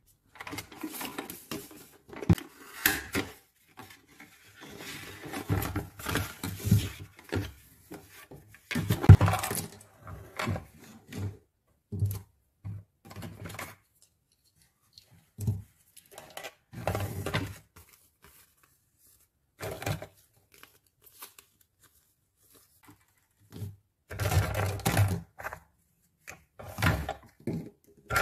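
Unboxing a plastic toy kitchen set: packaging rustling and tearing, with light clicks and knocks of small hard plastic pieces being handled. It comes in irregular bursts with quiet pauses between.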